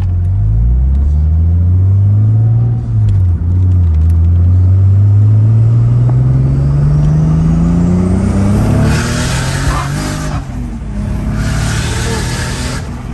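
Toyota 2JZ inline-six engine in a Nissan S14 accelerating hard: the revs climb, dip briefly at a gear change about three seconds in, then climb steadily for several seconds. Two bursts of hissing noise follow near the end.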